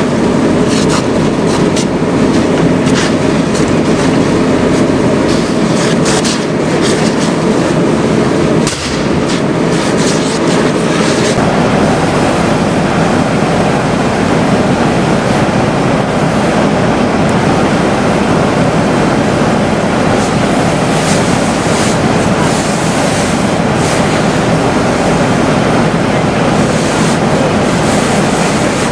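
Burning pickup truck being doused with a fire hose: a loud, steady rush of water spray and fire, broken by sharp pops and cracks. A small explosion goes off about five seconds in and a larger bang about eight seconds in, as the vehicle's fuel burns.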